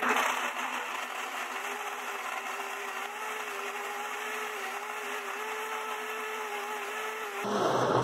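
Countertop blender running steadily, blending milk, oil, eggs, chunks of mozzarella and half the tapioca starch into pão de queijo batter. This is a brief first mix. The motor starts at once and stops shortly before the end.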